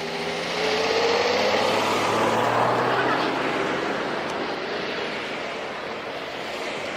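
A vehicle passing close by: its noise swells about half a second in, with a faint rising whine, then slowly fades.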